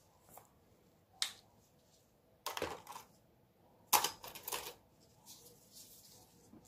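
Small plastic containers handled on a table: a few sharp clicks and clatters as a jar is opened and cups are set down, the loudest about four seconds in. Then a wooden stir stick scrapes lightly inside the jar.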